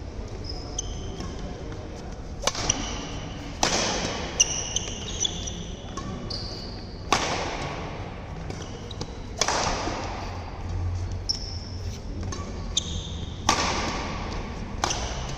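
Badminton rally: rackets strike the shuttlecock every second or two, each hit a sharp smack that echoes in the hall. Between the hits, sports shoes squeak briefly on the court surface.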